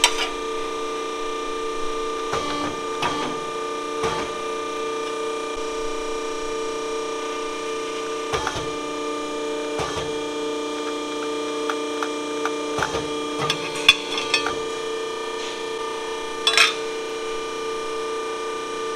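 Ironworker's press brake: a steady hum with scattered metal knocks and clanks as sheet steel is handled and bent in it.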